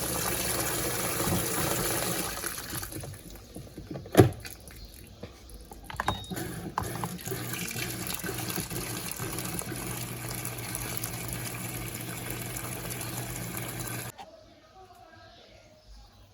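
Electrolux LTC07 top-loading washing machine filling with water: water pouring into the tub with a steady low hum. There is a single knock about 4 seconds in, and the fill cuts off suddenly near the end.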